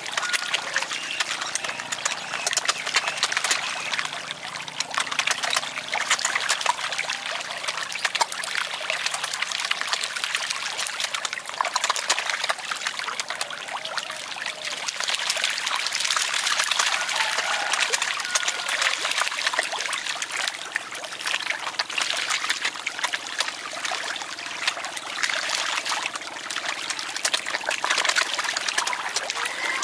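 A crowd of fish thrashing in shallow water, a continuous busy patter of small splashes and slaps at the surface.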